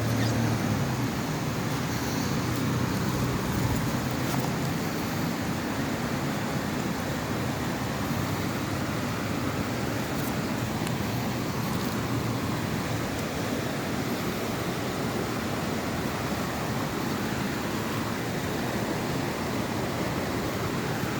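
Steady low motor rumble with rushing wind and water noise.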